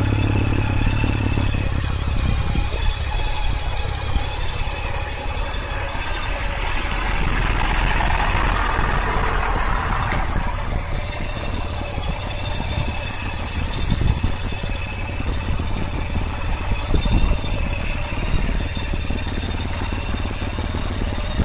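Honda Gold Wing Valkyrie's 1832 cc flat-six engine idling steadily with a low, even rumble. A brief rushing noise rises and fades near the middle.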